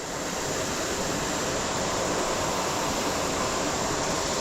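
Steady rush of a creek running high after heavy rain: a continuous hiss of flowing water that swells a little at the start and then holds even.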